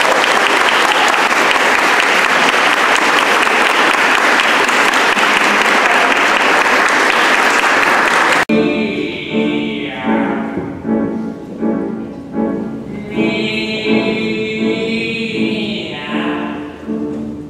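Audience applauding for about eight seconds, then an abrupt cut to music with a steady pulse.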